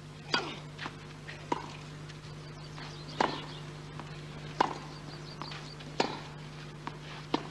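Tennis ball struck back and forth in a baseline rally on clay: six sharp racquet hits about a second and a half apart, with fainter ticks between them, over a steady low hum.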